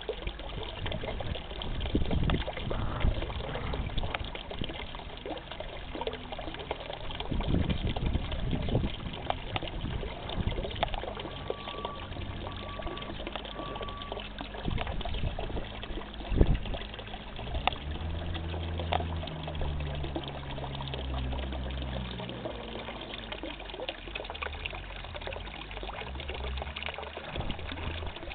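Small garden-pond fountain jet splashing steadily into the water. A low hum swells for a few seconds past the middle.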